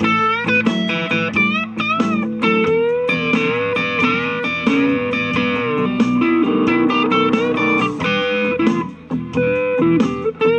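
Electric guitar played through an M-Vave BlackBox amp simulator with a clean vintage blues tone, picking blues lead lines with string bends over sustained lower notes. Heard through a phone microphone.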